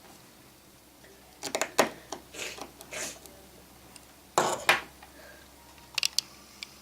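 Small metal tools and phone parts clicking and clinking against a hard work surface in several short bunches, the loudest about a second and a half in and again around four and a half seconds in.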